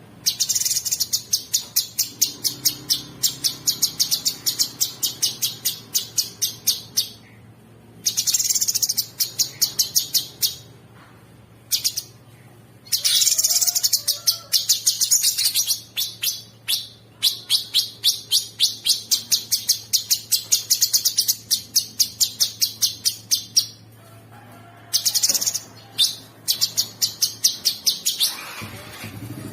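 Cucak sungkok singing long, fast runs of high, evenly repeated notes in four or five phrases broken by short pauses, over a faint steady low hum.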